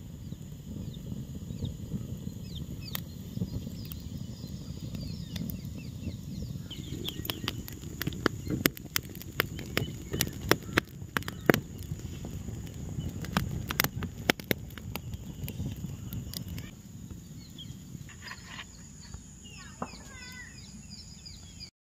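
An open twig fire crackling and popping with sharp cracks under corn cobs roasting on a wire grill, over a low steady rumble of the flames that drops away about 17 seconds in. Birds chirp at the start and again near the end.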